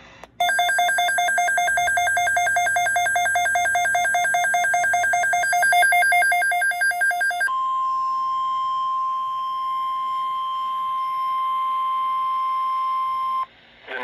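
Midland weather radio sounding an alert: a rapid pulsing electronic alarm for about seven seconds, then a steady single high tone for about six seconds. The steady tone is the NOAA Weather Radio alert tone that comes before a broadcast warning message, here for a severe thunderstorm watch.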